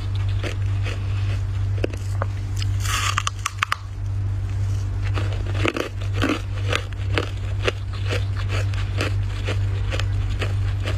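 Dry, flaky freezer frost being bitten and chewed: a fast, irregular run of crisp crunches. There is a short rasping scrape about three seconds in, all over a steady low hum.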